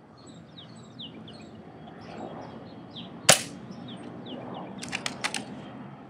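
Black Eagle M6 airsoft sniper rifle firing one shot, a single sharp crack about halfway through; the shot misses the can. A few quick clicks follow near the end, with small birds chirping throughout.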